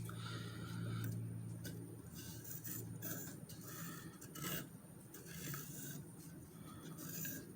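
Irregular rubbing and scraping strokes of hand work on a piece of wood, with a few sharp clicks, over a low steady hum that weakens after about two seconds.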